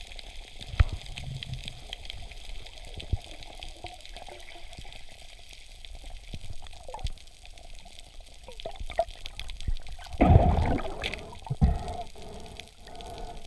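Underwater sound through a camera housing while diving: low water noise with scattered sharp clicks, and a louder rush of water about ten seconds in.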